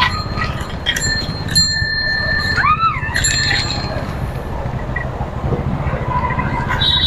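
Bicycle bell rung a few times during a ride, each ring fading out over about a second, over a steady low rumble of wind and road noise. About three seconds in there is a short tone that rises and falls.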